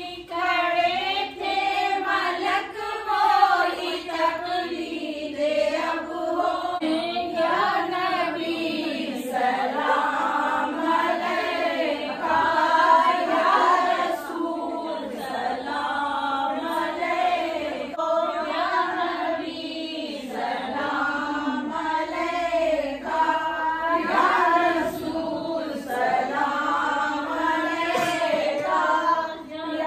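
A group of women singing a devotional song together in unison, without instruments, in long rising and falling phrases.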